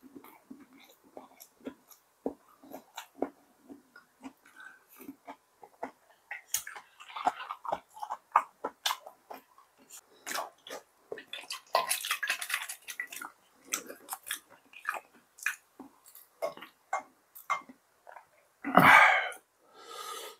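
A person chewing food close to the microphone: many short wet clicks and smacks. Louder noisy bursts come about seven and twelve seconds in, and the loudest just before the end.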